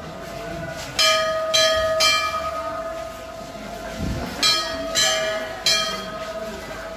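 Shrine bells struck by hand six times, in two groups of three about half a second apart, each strike ringing on over the lingering hum of the bells.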